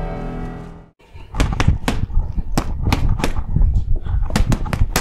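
Music fades out in the first second; then boxing gloves hit a freestanding heavy bag in quick combinations, a dozen or so sharp smacks in uneven clusters.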